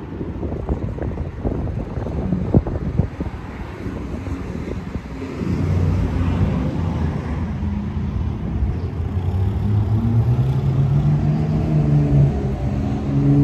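A motor vehicle's engine running, coming in about five seconds in; its pitch climbs around ten seconds in and then holds steady. Before that, wind noise on the microphone with a few light knocks.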